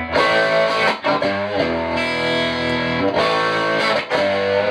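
Electric guitar played through the Fender Excelsior, a push-pull 6V6 tube combo with a single 15-inch speaker: held chords changing about every second, with a few bent notes.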